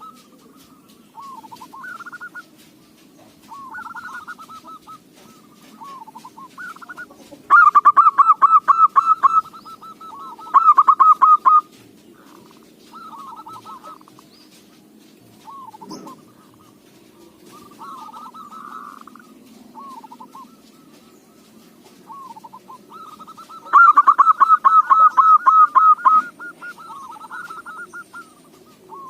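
Zebra dove cooing. Soft short coos recur throughout, broken by two loud bouts of rapid staccato cooing, about eight seconds in and again about twenty-four seconds in.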